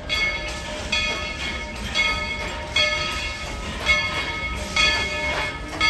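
Steam locomotive bell ringing steadily, one stroke about every second, each ring fading before the next, over the low rumble of the moving train.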